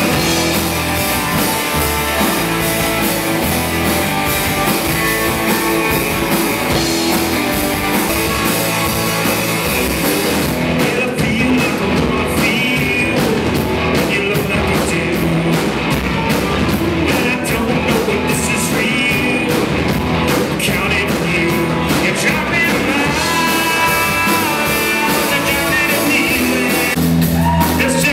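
A live rock band playing: electric guitars and a drum kit with a steady beat, and a voice singing over them.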